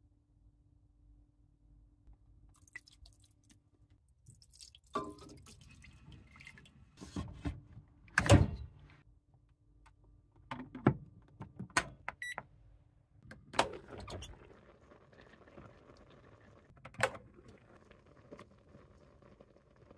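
Clunks and clicks from handling a rice cooker: the pot is set in and the lid shut, with the loudest knock about a third of the way in. A short electronic beep comes near the middle, and another click comes near the end.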